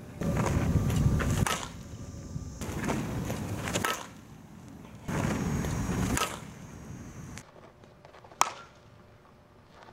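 Softball bat hitting softballs in batting practice: a series of sharp, ringing cracks of bat on ball, the cleanest and loudest about eight seconds in. Between hits there are stretches of low rushing noise that start and stop abruptly.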